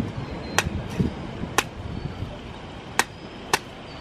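Machete chopping into a fresh coconut: five sharp strikes at uneven intervals.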